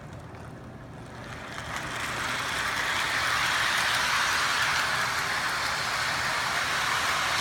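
Lionel O-gauge remote-control toy train running on its track: a rushing rumble that builds over the first two or three seconds, then runs steadily.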